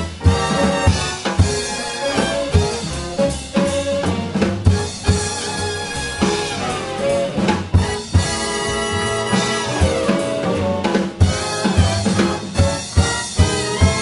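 Swing big band playing loud ensemble chords, saxophones and brass over a drum kit that punctuates with frequent snare and bass-drum accents, with piano and electric bass underneath.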